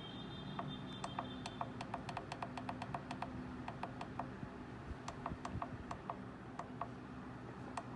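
Quick, irregular runs of light clicks over a low steady hum.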